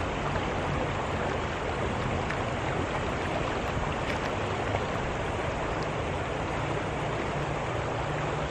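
Fast-flowing river current rushing steadily.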